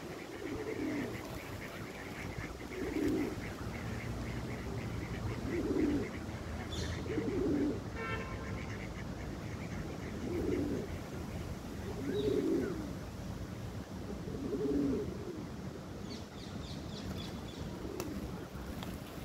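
Birds calling: a low cooing call repeats every couple of seconds, with a few short high peeps in between.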